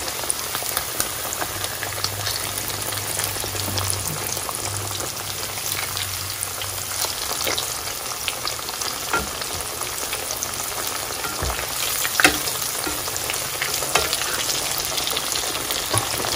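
Breaded pork chops frying in a pan of hot oil: a steady sizzle full of crackling, with a few sharp clicks as the chops are turned with metal tongs, the loudest about twelve seconds in.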